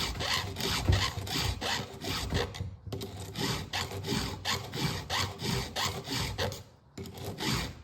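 Round chainsaw file in an Oregon file guide rasping across the cutter teeth of a saw chain, in quick even strokes of about three a second, with a short break about three seconds in and another near the end.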